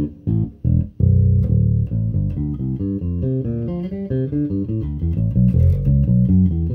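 TUNE SWV-6 six-string, 33-inch-scale electric bass with a monkey pod top, played fingerstyle: a few short clipped notes, then from about a second in a continuous flowing line of notes.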